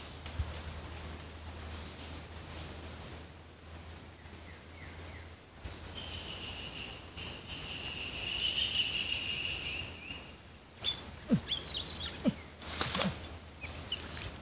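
Insects droning and chirping in a swamp in a steady, high-pitched chorus that swells in the middle. Near the end come a few sharp clicks and brief chirps.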